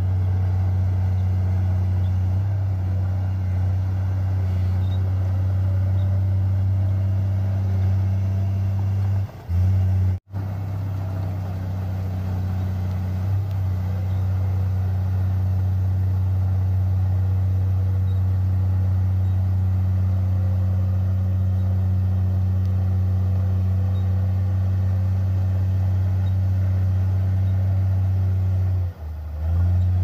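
Komatsu crawler bulldozer's diesel engine running under load at a steady pitch, a deep even drone, with a brief break about ten seconds in.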